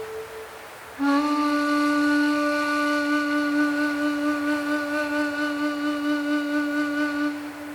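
A woodwind holding one long, steady low note in slow ambient music. It comes in about a second in, just after a higher note dies away, and rings on briefly after it stops near the end. A faint wind-like hiss runs beneath it.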